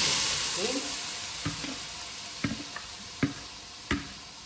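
Boiled chana dal going into the hot fried masala in the pot, sizzling loudly at first and then dying down. Then a spoon knocks against the pot about once a second as the dal is stirred in.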